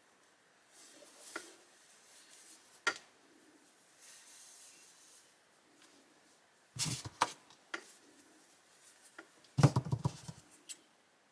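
Close-range handling of a wool rib-knit fabric as a yarn end is drawn through it with a darning needle: soft rubbing and scratching of yarn and fabric with scattered small clicks, and two louder bouts of handling noise about seven and ten seconds in.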